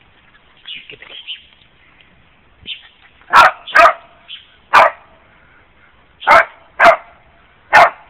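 A dog barking: six loud, short barks starting about three seconds in, irregularly spaced and some in quick pairs, after a few faint softer sounds.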